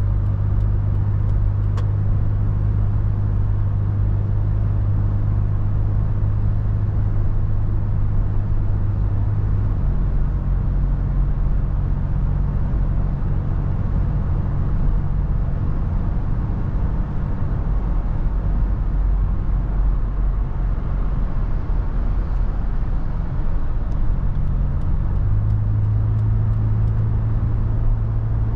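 Toyota FJ Cruiser's 4.0-litre V6 and road noise while driving: a steady low drone whose engine note changes about ten seconds in and changes back a few seconds before the end.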